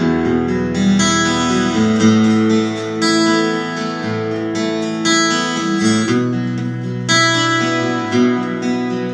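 Instrumental song introduction on guitar, with chords changing every second or two.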